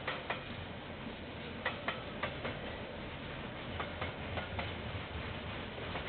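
Train wheels clicking over a rail joint as railway wagons roll past, over a low rumble. The clicks come in pairs, two pairs close together with a longer gap before the next two, the rhythm of bogie axles crossing the joint one after another.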